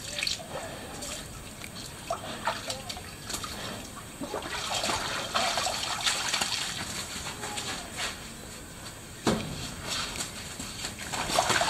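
Water sloshing, splashing and trickling as a white tiger wades through its shallow pool, with louder splashes near the end.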